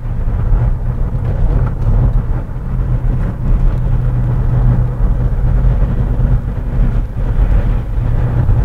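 Inside the cabin of a VW Jetta TDI driving steadily at low revs: its four-cylinder turbodiesel running under light load, with a steady low rumble of engine and road noise.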